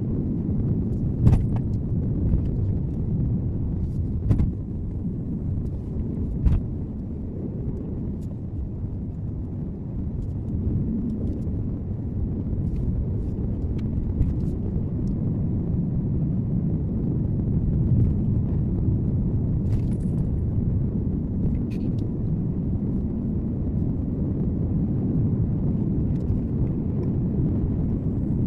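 Car driving on a road as heard by a dashcam inside the car: a steady low rumble of engine and tyre noise, with a few sharp knocks in the first several seconds.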